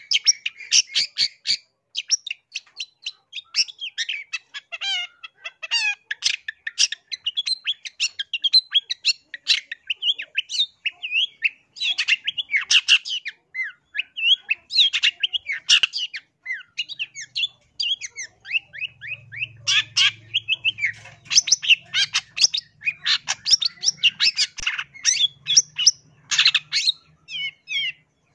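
Long-tailed shrike (cendet) singing nonstop: a fast, varied run of sharp chirps, harsh notes and quick trills with hardly a pause.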